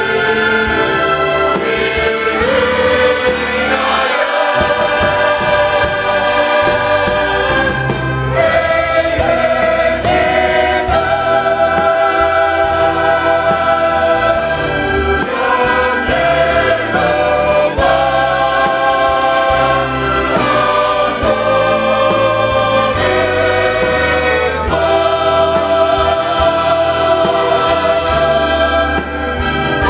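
Choir singing a Christmas cantata with instrumental accompaniment, long held notes with vibrato over a steady bass.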